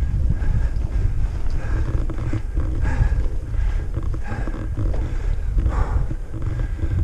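Mountain bike rolling along a dirt singletrack: wind rumbling on the on-bike camera's microphone, with tyre noise and scattered rattles from the bike.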